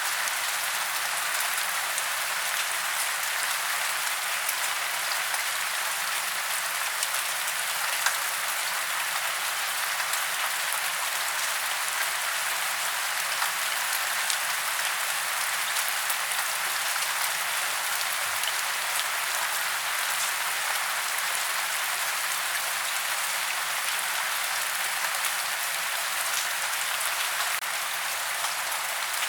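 Steady rain falling on tree branches and leaves: an even hiss of rainfall with individual drops ticking through it.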